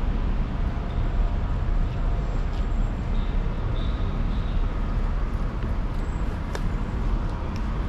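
City street traffic running steadily, with wind buffeting the microphone.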